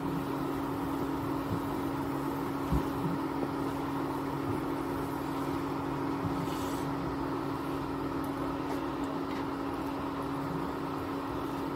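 Wooden spoon stirring milk and semolina in a steel pot, with a few light knocks against the pot. Under it runs a steady hum with a constant low tone.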